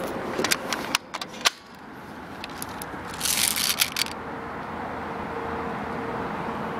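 Handling noise from a clear-plastic M4-style BB gun: several sharp clicks and knocks in the first second and a half, then a rustling scrape about three seconds in as the gun is raised to aim.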